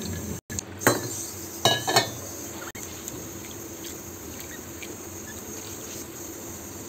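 Wet sago pearls being drained and handled in a ceramic bowl: water sloshing and three sharp clinks of the bowl in the first two seconds, then only a faint steady hiss.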